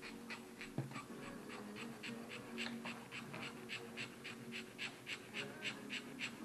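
A dog panting rapidly and steadily, about three quick breaths a second, getting a little louder toward the end.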